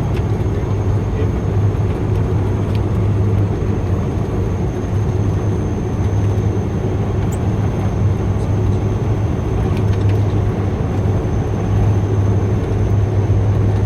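Cabin noise of a Dash 8 Q400 turboprop on approach: a steady low propeller drone over an even rush of air, with a faint high whine above it.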